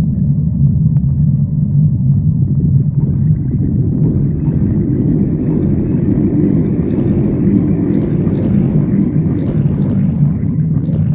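A person's stomach growling: one long, continuous low rumble, with a higher, rougher growl joining about three seconds in and dying away near the end.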